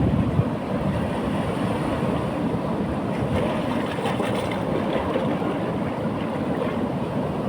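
Ocean waves breaking and washing up a beach: a steady rushing surf, with a heavier low surge at the very start.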